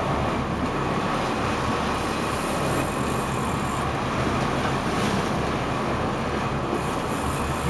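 Fishing boat's engine running steadily under a constant rush of wind and water.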